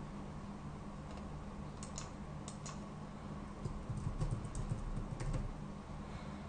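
Typing on a computer keyboard: scattered keystroke clicks in short runs, about two seconds in and again through the middle.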